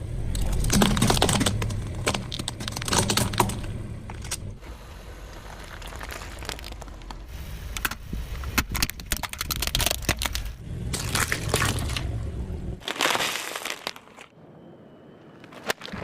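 A car tyre rolling over and crushing brittle objects: repeated sharp cracks and crackling in clusters over a low rumble. The rumble stops about thirteen seconds in, and a short quiet gap comes before a final burst of cracking near the end.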